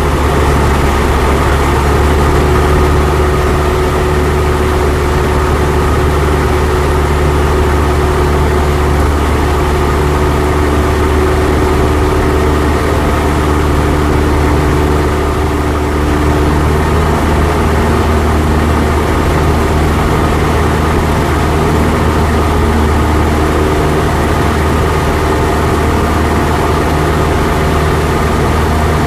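Cessna 172's piston engine and propeller droning steadily, heard from inside the cabin in flight, with a slight change in tone about halfway through.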